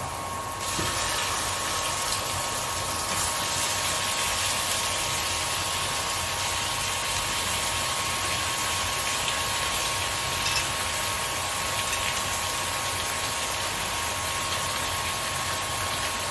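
Marinated mutton sizzling as it goes into hot oil and fried onions in a kadhai. The hiss jumps up about a second in and then holds steady.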